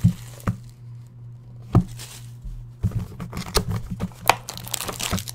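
Cellophane shrink wrap being pulled off a trading-card box and crinkled in the hands, in scattered sharp crackles. From about three seconds in, a dense run of plastic crackles and cardboard rustles and taps as the box is opened. A steady low electrical hum sits underneath.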